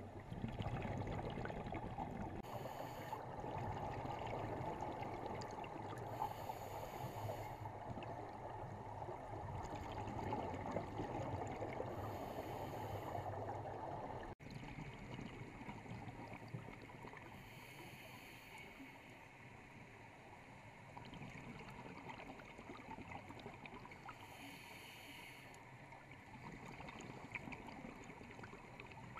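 Underwater sound of scuba diving: a steady watery hiss, with regulator exhalations sending bubbles gurgling up in hissing bursts every five seconds or so. The sound cuts out for an instant about halfway through.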